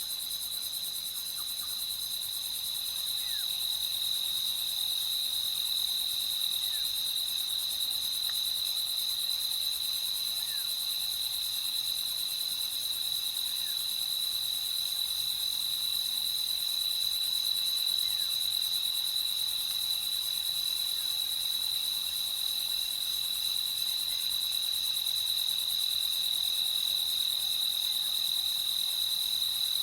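Crickets trilling in a steady, unbroken chorus, one high trill loudest above a fine pulsing haze of more insects, with a few faint short chirps now and then.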